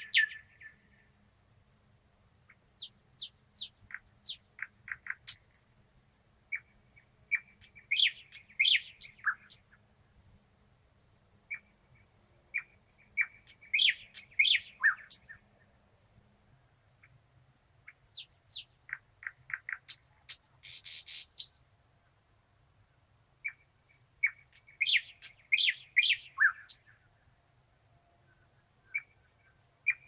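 Thrush nightingale singing: about five loud phrases of rapid repeated clicks and piping notes, each lasting a few seconds, with short pauses between them. One phrase, about two-thirds of the way through, holds a rattle.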